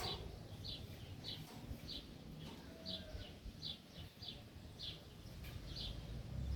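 A bird giving the same short, high chirp over and over, about three every two seconds.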